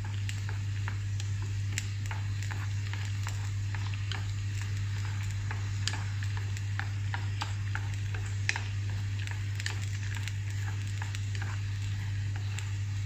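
Wooden chopsticks stirring and lifting instant noodles in a pot of boiling water, with irregular light clicks of the chopsticks against the aluminium pot over a bubbling hiss. A steady low hum runs underneath.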